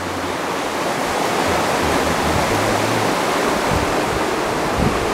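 Steady, loud rushing noise with low rumbling buffets.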